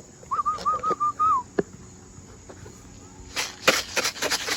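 A person whistling a quick run of about six short, identical rising-and-falling notes to call in young racing pigeons. About three seconds in comes a burst of rapid fluttering.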